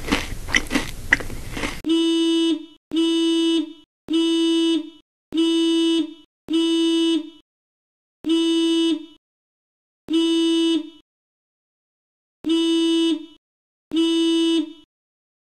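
Crunching bites into a crisp apple, then a car horn honked nine times in short blasts of under a second each, with uneven gaps between them.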